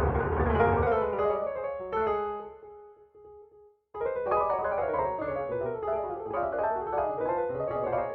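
Piano playing from a MIDI file: dense chords over a bass line, then a held chord that dies away about two seconds in. After a short gap the rapid notes start again about four seconds in.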